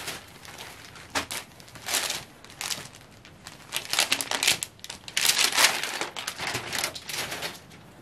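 Crinkly rustling of a folded printed suit fabric as it is handled, lifted and unfolded by hand, coming in several bursts, loudest around the middle.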